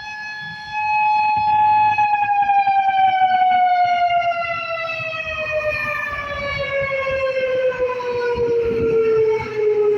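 Whelen 4004 outdoor warning siren sounding a loud, steady high tone. About two seconds in, its pitch starts to fall slowly and evenly as the siren winds down at the end of its test.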